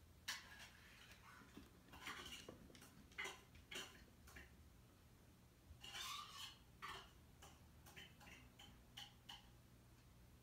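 Faint, irregular clicks and clinks, about a dozen over ten seconds, against near silence.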